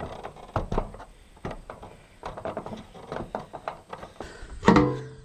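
Irregular knocks and clunks of a person climbing a ladder laid on a metal roof, about two or three a second as feet and hands shift on the rungs. A short, loud, low-pitched sound near the end is the loudest thing heard.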